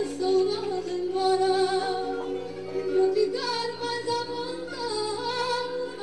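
Background music with a singing voice holding long, gliding notes over steady low tones.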